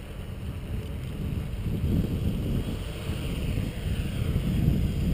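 Wind buffeting the microphone in an irregular low rumble, with the quadcopter's electric motors and propellers whirring faintly above it as it hovers just off the ground.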